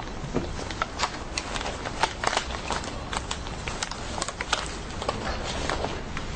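Paper rustling as a thick stack of manila folders and papers is leafed through by hand: many short, irregular flicks over a low steady hum.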